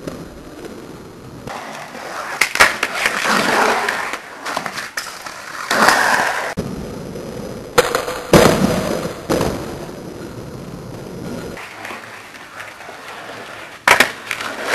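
Skateboard wheels rolling on a paved court, with sharp clacks of the board popping and landing during ollies. The cracks come several times, the loudest about eight seconds in, and one more near the end.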